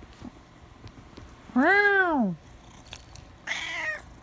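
Domestic cat meowing twice: a loud, drawn-out meow that rises and then falls in pitch about a second and a half in, then a shorter, quieter, hoarser meow near the end.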